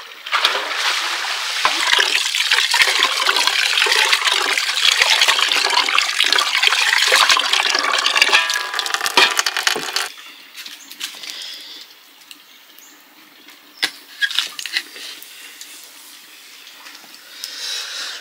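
A stream of water from a pipe spout pouring into an aluminium basin, a loud steady splashing that breaks off about ten seconds in. A quieter stretch follows with a few sharp knocks.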